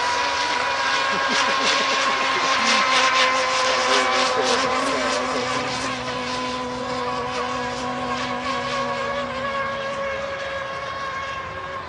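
Baby Uno Argentina RC speedboat's engine running flat out with a steady high-pitched whine, fading slowly as the boat runs away.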